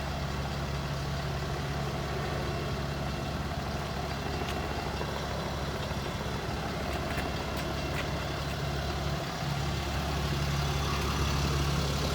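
A heavy engine idling steadily, a constant low hum, with a few faint ticks.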